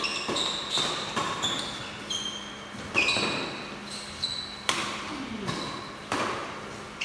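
A ball being struck and bouncing in a rally: sharp knocks, each with a brief high ring, coming irregularly about every half second.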